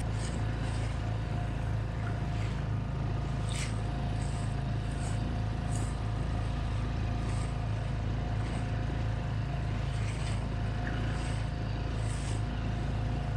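Honda four-stroke outboard motor running steadily, pushing an inflatable boat across open sea, with water slapping against the hull every second or two.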